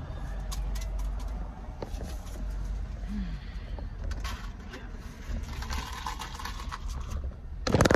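Low steady rumble of a car's engine and road noise heard inside the cabin as the car pulls away, with scattered light clicks and handling noises. A loud, brief clatter comes near the end.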